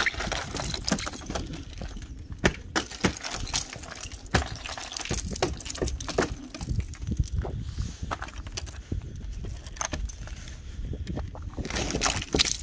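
Ice glaze being smashed and broken off a frozen car: many sharp, irregular cracks and crunches of breaking ice.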